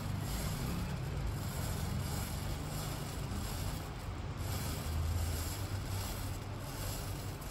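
A low wind rumble on the microphone over a steady hiss, as matchstick heads burn and catch one after another along a row of matches.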